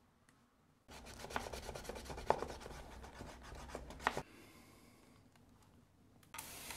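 Sanding sponge rubbing back and forth along the cut edge of thick vegetable-tanned leather, a scratchy rasping in quick strokes from about a second in until about four seconds in. The edge is being smoothed before bevelling, dyeing and burnishing.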